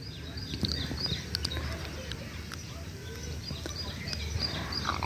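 Small birds chirping, many short high notes in quick succession, over a low steady outdoor rumble.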